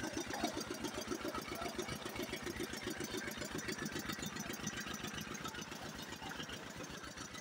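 An engine running steadily with a fast, even chugging of about ten beats a second.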